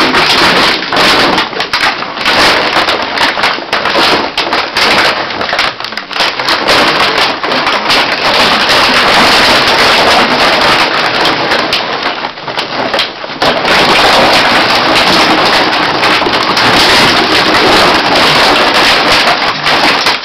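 Empty plastic drink bottles crackling and crunching continuously as two young dogs wrestle and scramble on a heap of them, with a short lull a little past the middle.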